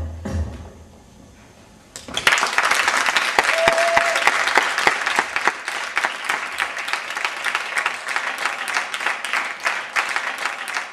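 Performance music with a low beat stops in the first second; after a short hush an audience bursts into applause about two seconds in, clapping on steadily and thinning near the end.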